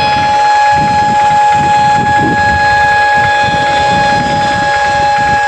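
An emergency vehicle's warning hooter sounding one loud, steady held tone that does not change pitch, over a rumble of crowd and traffic noise.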